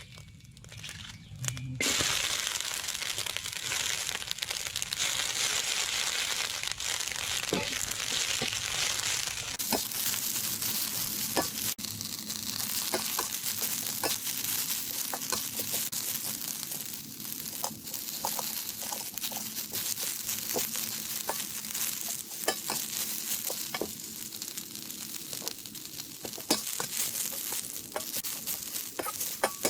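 Instant noodles and egg sizzling in hot oil in a pan, the sizzle starting suddenly about two seconds in, with a spatula scraping and tapping against the pan as they are stir-fried.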